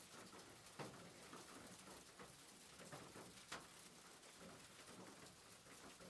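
Faint steady rain pattering, with scattered individual drops and a couple of louder drips, about a second in and around the middle.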